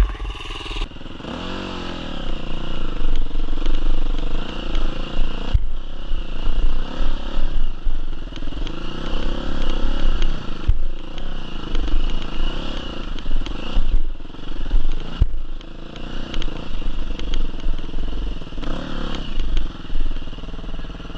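Enduro dirt bike engine revving up and down under load while climbing a rocky slope, heard from on the bike. A few sharp knocks are heard along the way.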